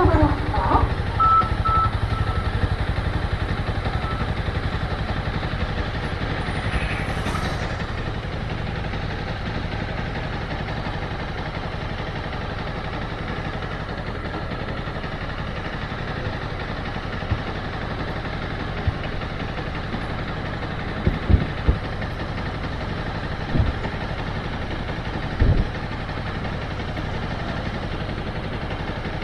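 Motorcycle engine running steadily at low revs, with several short knocks in the last third.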